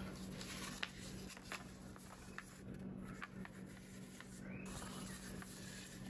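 Faint rustling and soft crackling of origami paper being handled and folded by hand, a handful of small crisp clicks spread through, over a steady low hum.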